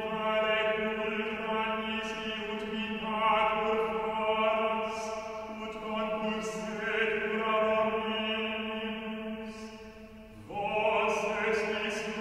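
Chanted vocal music: sung voices holding long, steady tones over a sustained drone. Near the end the sound dips, then a new entry swells up with a short upward glide.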